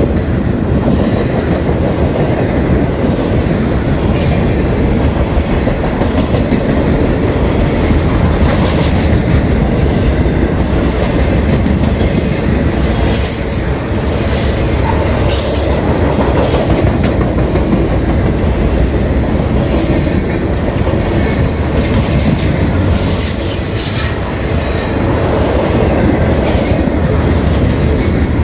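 Freight train's boxcars rolling past close by: a loud, steady rumble of steel wheels on rail, broken again and again by short high wheel squeals and clicks.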